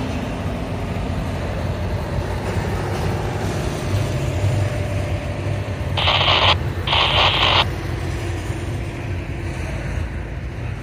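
Double-stack intermodal freight train rolling past, with a steady rumble of wheels on rail. Two short bursts of hiss cut in and out sharply about six and seven seconds in.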